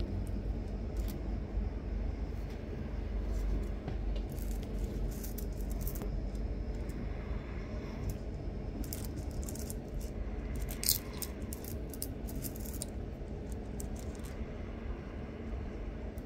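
Small pieces of rough opal clicking and clinking against one another as they are handled. The light clicks are scattered at first, then come thick about nine to thirteen seconds in, the sharpest near eleven seconds, over a steady low rumble.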